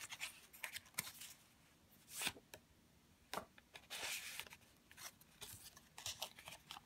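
Pages of a handmade junk journal being turned and handled: paper rustling with light ticks and taps, and a couple of soft page-turn swishes.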